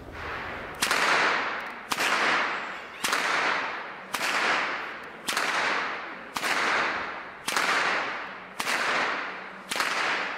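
A long whip being cracked over and over, nine sharp cracks about one a second, each followed by a fading echo.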